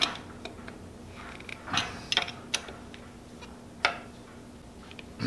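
Hand wrench tightening bolts on a metal lathe: a handful of sharp metallic clicks and clinks, irregularly spaced. The bolts are being snugged up so that vibration won't upset the machine's tolerances.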